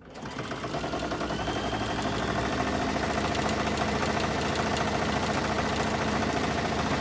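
Baby Lock Ellisimo computerized sewing machine running a straight stitch. It speeds up over the first second, then stitches steadily at a fast, even rate.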